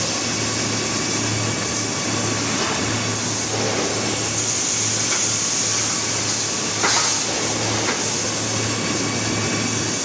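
Steady machinery noise of a rebar rolling mill's cooling bed and bar conveyors. A low hum drops out briefly every second or so, and there is a sharp knock about seven seconds in, with a lighter one a second later.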